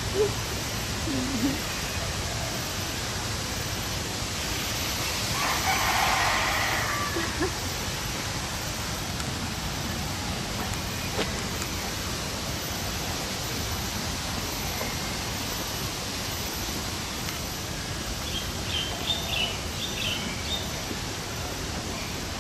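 Steady rushing background noise with fowl calling: one longer call about six seconds in, and a few short high chirps near the end.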